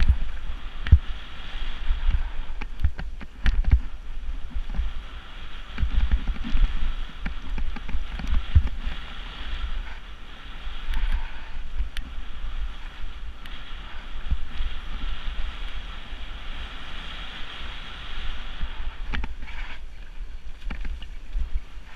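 Wind buffeting the microphone in gusts, with a steady hiss and a few scattered knocks.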